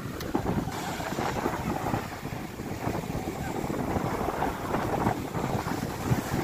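Surf breaking on a pebble beach, with wind buffeting the microphone; the hiss of the waves grows stronger just under a second in.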